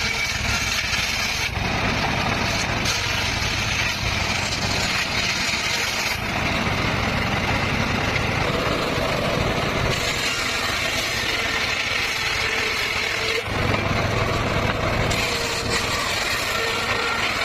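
Circular saw running steadily, driven by an engine, with the tone of the cutting changing several times as the work goes on.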